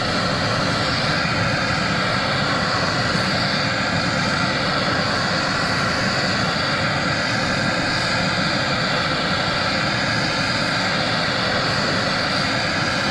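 Gas torch burning steadily, preheating thick aluminium before TIG welding.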